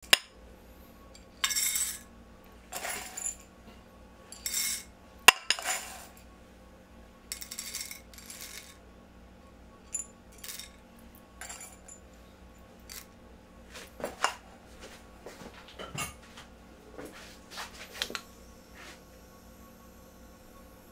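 Roasted coffee beans poured into a ceramic dosing tray in several short pours, rattling against the ceramic, with one sharp click about five seconds in. Scattered light clicks of single beans follow until near the end.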